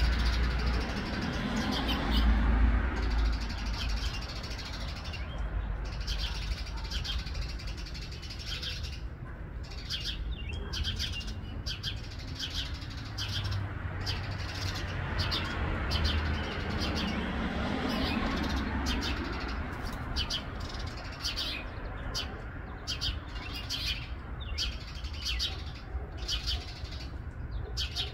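Small birds chirping in many short, quick calls, over a steady low rumble that swells twice, about two seconds in and again past the middle.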